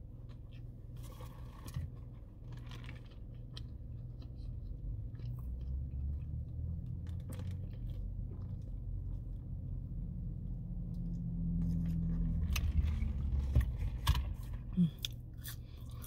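Close-up chewing of a fried fish sandwich, with soft crunches and wet mouth clicks, and a sip of a drink through a straw partway through. A steady low hum runs underneath.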